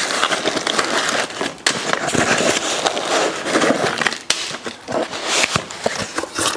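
Clear plastic bag crinkling and a cardboard mailer rustling as hands rummage through them close to the microphone, with scattered sharp crackles.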